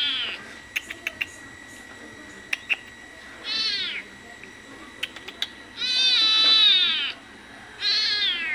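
Small kitten meowing repeatedly: a call trailing off at the start, a short meow about three and a half seconds in, a longer one around six seconds in, and another beginning near the end. Each call is high-pitched and drops in pitch as it ends.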